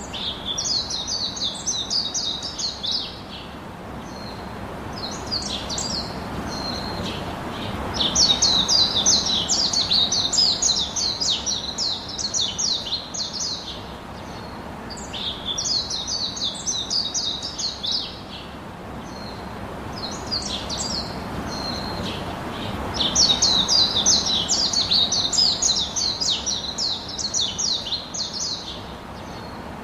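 Small birds chirping in quick, high twittering runs of a few seconds each, over a steady background hiss that swells and fades. The same sequence of calls repeats about every fifteen seconds, like a looped recording.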